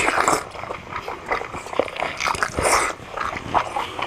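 Close-up wet chewing and lip-smacking as sour mango slices are eaten by hand: a run of short, irregular mouth clicks and smacks.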